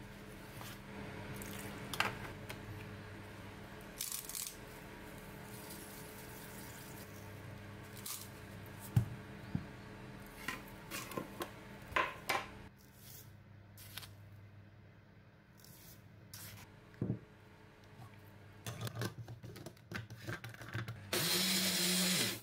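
Ingredients being handled and spooned into a plastic blender cup: scattered taps, clinks and rustles over a steady low hum. About a second before the end, a Riino personal blender runs, grinding red chillies and sugar into a paste.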